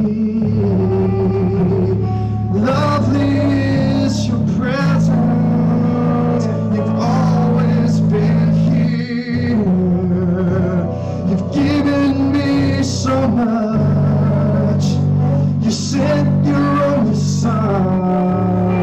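Church praise band playing a slow worship song, with long held keyboard chords and low notes under voices singing.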